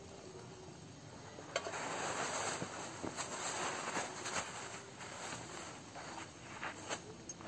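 Nylon tent fabric and groundsheet rustling as a person crawls out of a small dome tent, with a sharp click about one and a half seconds in and a few lighter clicks and taps.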